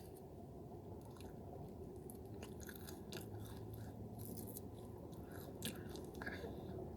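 Chewing and biting on chicken wings, with soft scattered mouth clicks.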